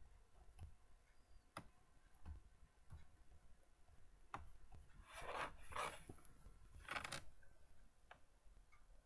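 Near silence: room tone with a few faint, scattered clicks and three short, soft rustling swishes about five to seven seconds in.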